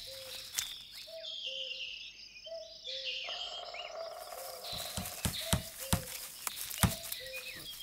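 Forest ambience: birds chirping and calling, with a low two-note call repeating every half second or so. Short clicks and knocks come in over the second half.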